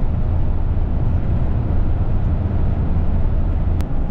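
Steady road noise of a moving car heard from inside the cabin: tyres and engine, mostly low-pitched, with a faint tick near the end.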